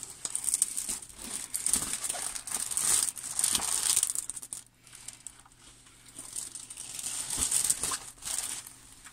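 Clear plastic film on a rolled diamond painting canvas crinkling and rustling as it is handled and slid along. The rustling comes in bouts, loudest in the first four seconds and again near the end, with a quieter stretch in the middle.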